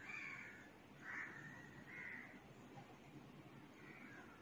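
Near silence with a faint low hiss, broken by about five faint, short, bird-like calls spread through.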